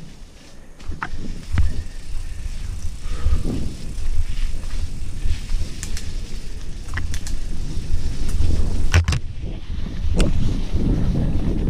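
Mountain bike ridden fast over a wet dirt trail: a steady, jostling rumble of tyres, trail vibration and wind on the microphone, picking up after about a second. Scattered sharp clicks and clatters of the chain and frame over roots and bumps break through it, the loudest about nine seconds in.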